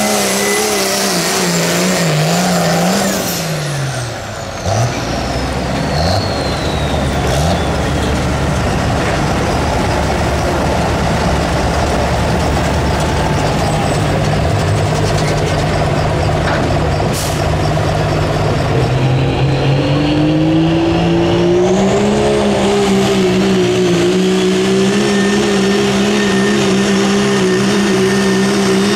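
Turbocharged diesel pulling truck of the 2.6 class running hard with turbo whistle. About four seconds in, the engine note falls and a high turbo whine slides down; the engine then comes back on strongly. Later the engine note climbs, with the turbo whine rising again, and holds high.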